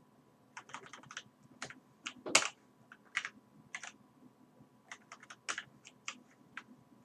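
Typing on a computer keyboard: irregular keystrokes with short pauses between them, one heavier key press about two and a half seconds in.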